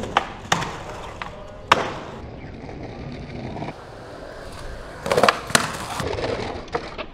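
Skateboard on concrete: wheels rolling, with several sharp clacks of the board popping and landing in the first couple of seconds, and a louder scraping stretch with more clacks around five seconds in as the board slides along a ledge.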